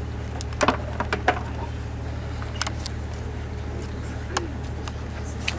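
Steady low rumble and faint crowd murmur of an open-air gathering, broken by a handful of sharp clicks and knocks, the loudest a quick cluster about a second in.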